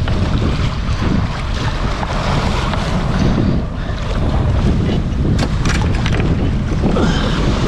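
Wind buffeting the microphone aboard a sailboat under way, over the wash of water along the hull. A few sharp clicks about five and a half seconds in.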